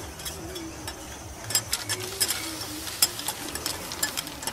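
Metal spatulas clacking and scraping on a flat steel griddle as food is stir-fried, over a steady sizzle. The sharp clicks pick up about a second and a half in, several a second.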